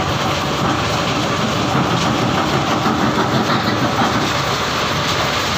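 Stone crusher plant at work: a steady, loud rattling din of machinery and rock as a tipper truck tips stone into the steel feed hopper.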